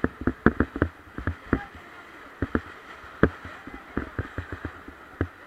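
Irregular sharp knocks and clicks over a steady rush of river water, from a paddled raft.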